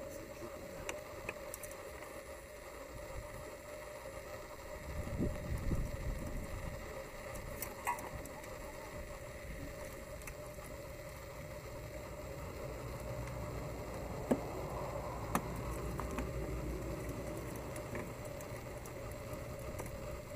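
Handling noises and sparse plastic clicks from the Opel Corsa's injector wiring harness connectors being worked by hand, over a steady low rumble. Two sharp clicks stand out a little past the middle.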